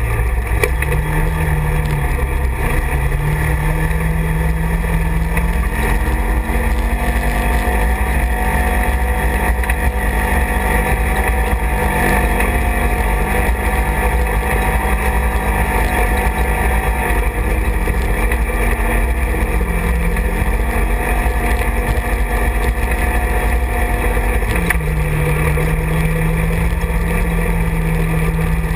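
Side-by-side UTV engine running under way, heard from the cab over a constant low rumble of road noise. Its pitch rises about six seconds in as the machine speeds up, holds there, and settles back to a lower pitch near the end.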